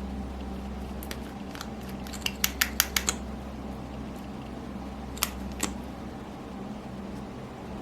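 A quick run of about six sharp clicks, then two more a couple of seconds later, over a steady low hum.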